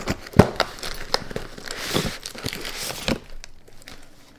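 Cardboard box and paper packaging crinkling and crackling as they are pulled apart by hand, with several sharp crackles; it dies down to faint handling after about three seconds.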